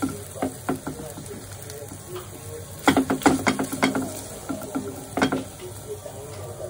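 A spatula scraping and knocking against a non-stick frying pan as cooked drumstick pieces are scooped out. The scrapes are scattered at first, with a quick run of them about three seconds in and another near the end.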